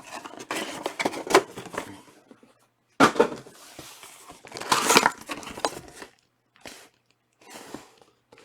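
Trading card pack wrapper crinkling and rustling as it is handled and torn open, along with cards being handled. It comes in several noisy bursts with short pauses, loudest about five seconds in.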